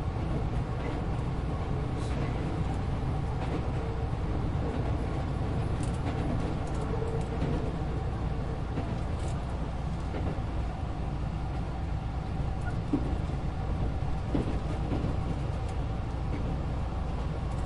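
Keisei Electric Railway train running, heard from inside the carriage: a steady low rumble with a few faint clicks from the track.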